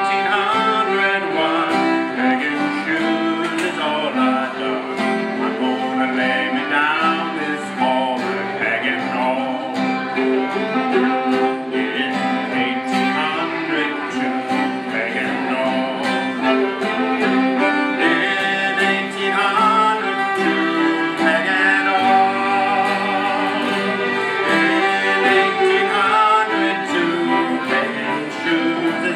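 A man sings a folk song while bowing a Gayford carbon-fibre five-string fiddle, the fiddle playing steadily beneath his voice.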